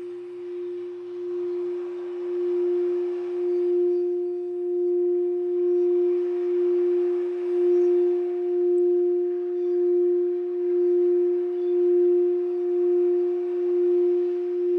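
Singing bowl sounding one sustained, steady tone, with a fainter higher overtone joining after a couple of seconds. It swells over the first few seconds, then pulses in a slow, even waver.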